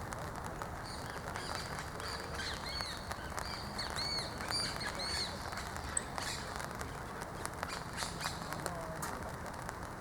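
Saffron finch (dorado) singing a quick series of short, arched chirps for several seconds, over steady background noise.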